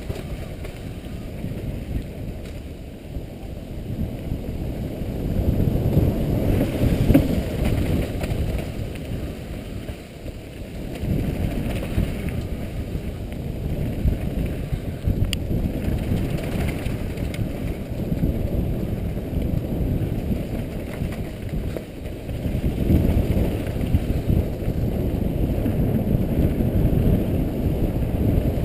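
Wind buffeting a helmet-mounted camera's microphone, mixed with the rumble of mountain bike tyres on a dirt trail during a fast downhill run. It swells and eases several times with the speed, and there is a brief click about halfway through.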